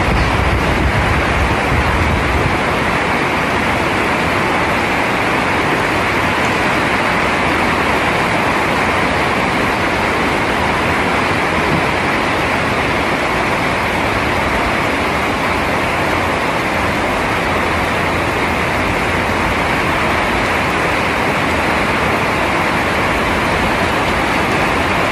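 Heavy rain falling steadily, a dense even hiss, with a brief low rumble at the start.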